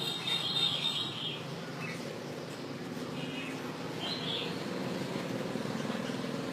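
Red-whiskered bulbul singing: a rapid phrase in the first second, then a few brief notes around two, three and four seconds in, over a steady low background hum.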